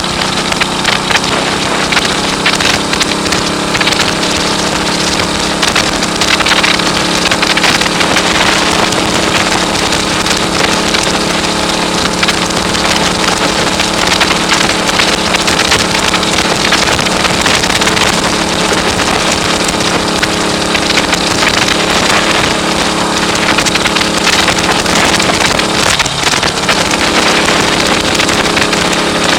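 1939 AJS Model 22's 250 cc single-cylinder engine running at a steady speed on the road, under heavy crackling wind noise on the microphone. About 26 seconds in, the engine note dips briefly and then settles at a slightly different pitch.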